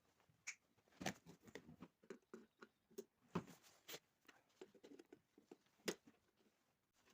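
Faint, irregular clicks, taps and light knocks of hands working on an electric kettle's parts, with a few sharper knocks about three, four and six seconds in.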